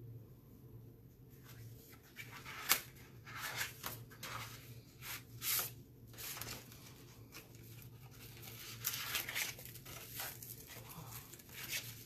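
Paper and clear plastic packaging being handled: irregular rustling and crinkling, with a sharp snap a little under three seconds in.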